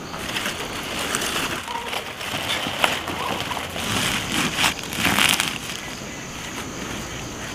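Rustling and crinkling of napa cabbage leaves and a plastic sack being handled, with scattered crisp crackles as the leaves are pushed into the sack.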